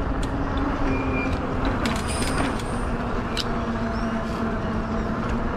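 E-bike in motion: wind noise on the microphone over a steady low motor hum, with a few light clicks and rattles, mostly around two to three seconds in.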